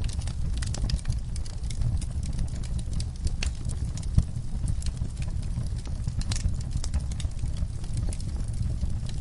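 Wood fire burning, with a steady low rumble under irregular crackles and pops, and one sharper pop about four seconds in.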